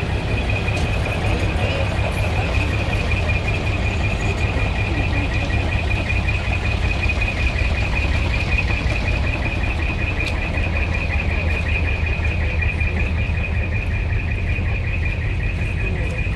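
Large truck engine idling with a steady low rumble, and a steady high-pitched rapidly pulsing tone over it.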